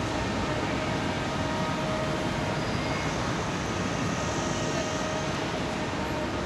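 Steady city traffic noise: an even rumble and hiss with a faint held hum.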